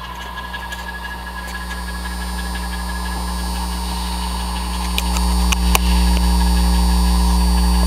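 Steady low electrical mains hum that grows louder and jumps up about five seconds in, with a few sharp clicks near the end.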